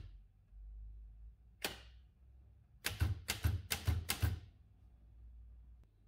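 Olivetti M20 typewriter mechanism clacking: one sharp click, then about a second later four more clacks roughly half a second apart.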